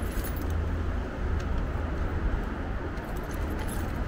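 Steady city traffic and road noise heard from a moving electric bike, with a steady low rumble.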